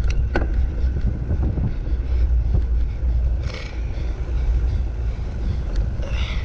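Heavy wind noise on a handlebar-mounted GoPro as a mountain bike is raced along the beach, with a few sharp clicks and rattles from the bike.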